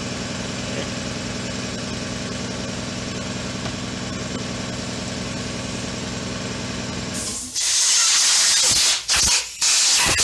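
A steady mechanical drone with a low, even pulse, then, about three quarters of the way in, loud bursts of compressed air from an air blow gun hissing on and off several times, blown into the seam of a motorcycle throttle grip to loosen it.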